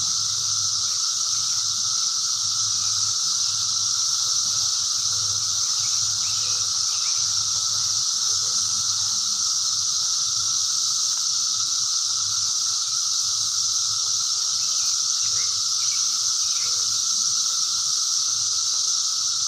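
Chorus of cicadas: a continuous, steady high-pitched drone with a second, lower steady whine beneath it.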